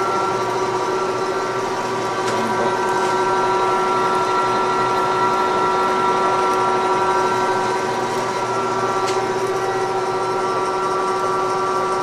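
Vertical milling machine running at low spindle speed, its power down-feed driving a large 7/8-inch drill bit through two stacked 3/8-inch boiler plates: a steady machine hum of several even tones over a constant cutting noise.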